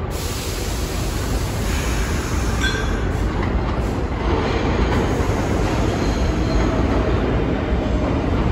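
New York City subway train approaching the station on the Lexington Avenue line, its rumble growing steadily louder as it nears the platform, with brief faint wheel squeals about two to three seconds in.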